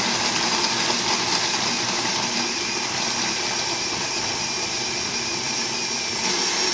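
KitchenAid countertop blender running steadily at full speed, its motor and blades giving a constant whine. It is chopping a jar of whole red grapes into a purée.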